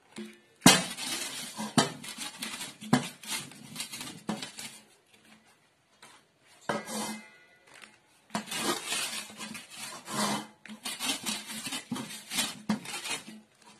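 Wooden rolling pin worked back and forth over a taro leaf laid on an upturned stainless-steel bowl, flattening its veins: a run of knocks, scrapes and rattles of the steel bowl, with two short pauses about halfway through.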